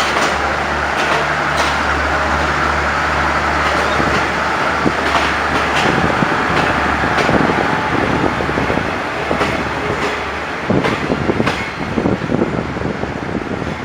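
Diesel-hauled passenger train moving through the station: the locomotive's engine drone fades after about four seconds, then the carriages' wheels clack over rail joints, the clacks growing more frequent and uneven near the end.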